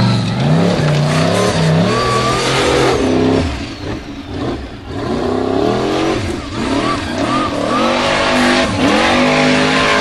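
Formula Offroad buggy's engine revving hard in repeated bursts, its pitch rising and falling as the throttle is worked on a steep dirt climb; the engine falls off about four seconds in, then revs up again.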